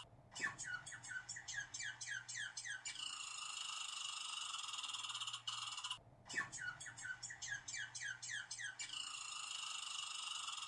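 Squirrel calling in quick bursts of short, downward-sliding chirps, about four a second for two to three seconds, twice, with a pause between. A steady high hiss runs underneath.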